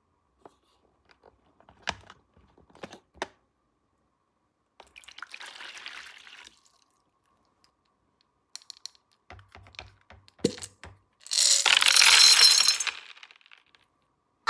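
Small plastic toy pieces being handled and unpacked: scattered clicks and taps, a soft rustle, then a louder noisy rattle lasting over a second near the end.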